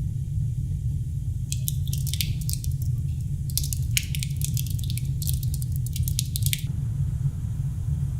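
Wet squishing and squelching of a gore sound effect: clusters of crackly, juicy squelches from about a second and a half in until past six seconds, over a steady low rumble.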